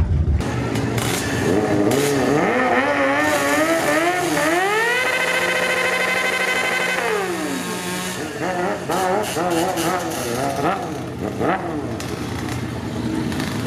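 Motorcycle engines revving at a drag-strip start line: the homemade two-stroke drag minibike with its big-bore Yamaha Blaster engine and a Suzuki GSX-R sportbike. The engine note wavers up and down, climbs to a high pitch held steady for about two seconds, drops away, then rises and falls again in quick revs.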